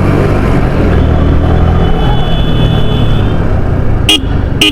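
Yamaha R15 motorcycle's single-cylinder engine running steadily under way, a low even drone. Two short sharp sounds come close together near the end.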